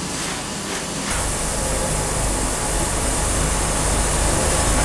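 Coffee bag-filling machine running with a steady hissing rush, a low rumble coming in about a second in.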